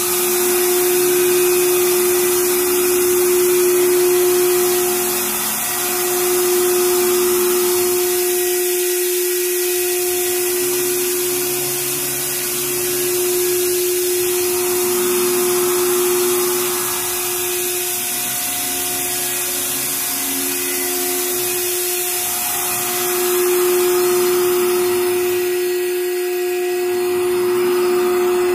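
AXYZ CNC router running with a steady whine from its spindle, a rushing hiss under it, and a lower motor hum that rises and falls every few seconds as the gantry traverses the table.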